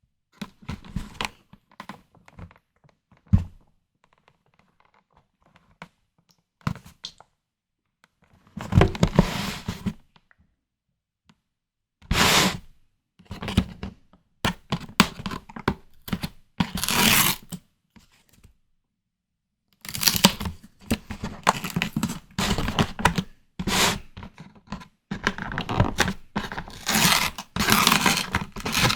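Close-miked eating sounds from white tiger prawn cocktail: irregular bursts of crackling, tearing and wet clicks as the prawns are handled and bitten, with pauses between. The bursts grow denser after about twenty seconds.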